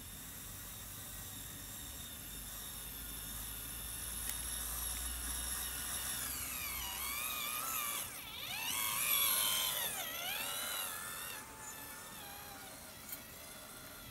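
Radio-controlled model tractor's motor whining as it drives, its pitch sliding up and down repeatedly as it speeds up and slows, growing louder and peaking about nine seconds in.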